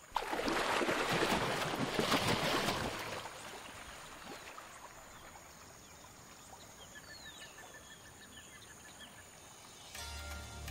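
A loud rush of splashing, churning water that fades out over about three seconds, followed by quiet river-edge ambience with a few bird chirps and a quick run of high pips. Music comes in near the end.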